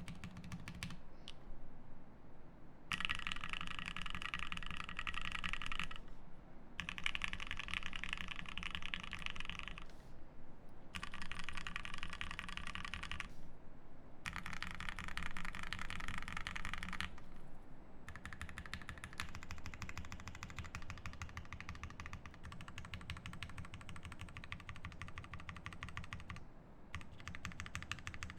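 Typing on a Bakeneko60 mechanical keyboard with lubed Gateron Milky Yellow linear switches on an FR4 plate, under CRP Tulip keycaps. It is a steady run of fast, clacky keystrokes with a few brief pauses, and several stretches in the first half are brighter and louder.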